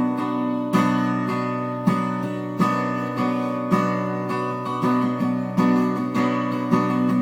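Acoustic guitar strummed in a slow, steady rhythm, a chord struck about once a second and left to ring, with no singing.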